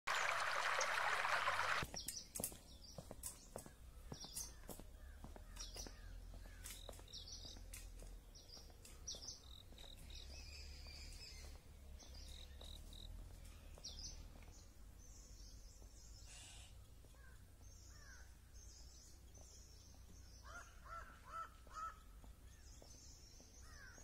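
Stream water rushing over stones for about two seconds, cutting off suddenly; then scattered high bird chirps, with a run of short, lower bird calls near the end.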